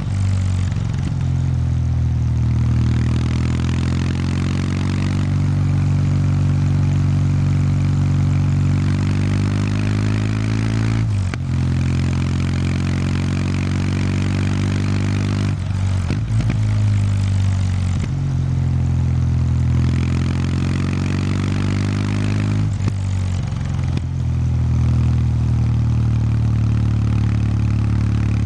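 Kawasaki W800 Street's air-cooled parallel-twin engine running through its stock exhaust while riding, the note rising and falling with the throttle. The note breaks briefly three times and then climbs again, like gear changes.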